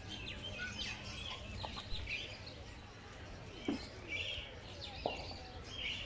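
Many birds chirping together in an aviary, a steady scatter of short high calls, with three brief louder sharp calls about two, three and a half, and five seconds in.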